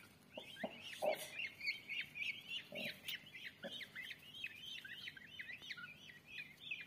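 Newly hatched Indian peafowl chicks peeping, a steady run of short high chirps several a second. A few soft knocks come in the first few seconds.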